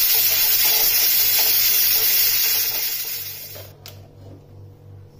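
Steam hissing out of a pressure cooker's release valve as it is held open with a wooden spoon. The hiss is loud and steady, then dies away about three seconds in as the pressure is spent, followed by a single click.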